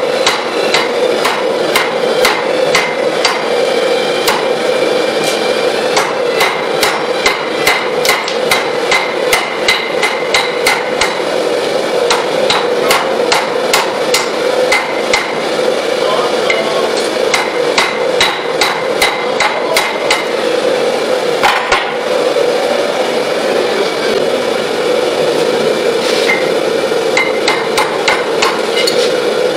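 Hand hammer beating hot mild steel on a small anvil, sharp ringing blows at about two a second with a short pause a little past halfway. A steady rushing noise underneath comes from the gas forge's burners running.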